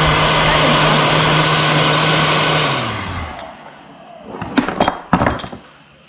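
An electric motor running with a loud rushing noise, then switched off and winding down about three seconds in, its hum falling in pitch as it stops. A few sharp clicks and knocks follow.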